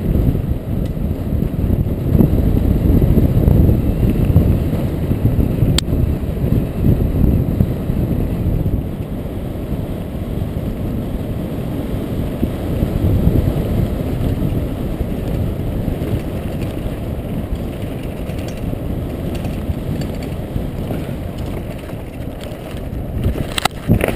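Wind buffeting an action camera's microphone and mountain bike tyres rumbling over a dirt forest trail at speed. In the last second a few sharp knocks and clatters as the mountain bike crashes.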